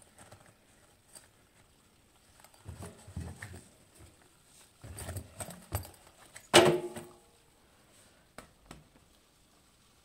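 Handling noise from a wet fabric pencil case being turned over by hand against a washing machine's steel drum: soft rustles and light knocks, then one sharp clink that rings briefly past the middle, and two small clicks after it.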